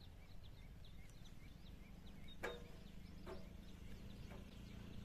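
Faint outdoor ambience: a steady low wind rumble on the microphone, with small birds chirping in short, repeated high notes. A sharp click about two and a half seconds in, and a softer one a second later.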